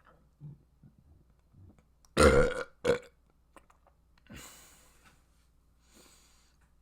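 A person burping loudly: one long burp about two seconds in, quickly followed by a short second one, then two quieter breathy noises.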